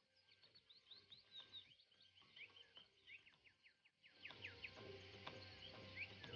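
Faint, quick bird chirps, many short falling calls in a row; about four seconds in a low steady hum comes in beneath them and the sound grows fuller.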